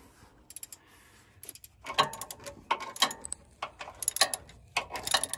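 Socket ratchet on a long extension clicking in short runs of quick clicks as it works the lower mounting bolts of an AC compressor loose.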